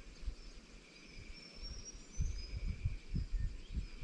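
Outdoor bush ambience: small birds chirping briefly and a steady high insect drone, with low gusts of wind buffeting the microphone that grow stronger about halfway through.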